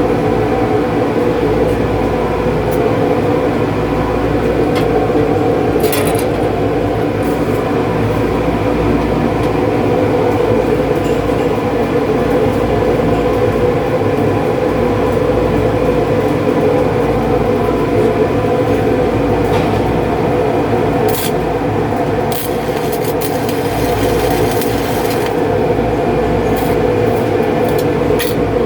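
Steady loud mechanical drone of welding-shop machinery, with several held tones, scattered sharp clicks and a short stretch of hissing crackle about twenty-two seconds in.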